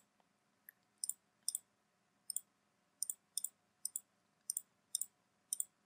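Faint computer mouse clicks, about nine of them at irregular intervals, each a quick press-and-release pair.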